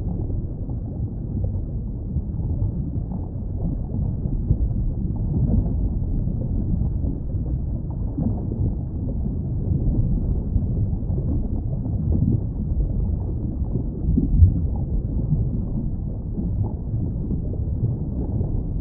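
Underwater ambience: a muffled, steady low rumble and wash of water, with no high sounds and gentle swells, one a little louder about two-thirds of the way through.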